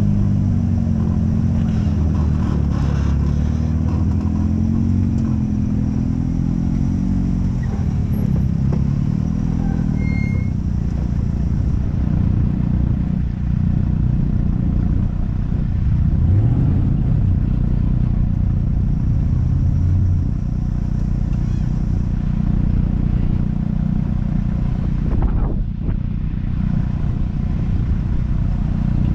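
Off-road vehicle engine running under way, its pitch rising and falling for the first several seconds, then holding steadier.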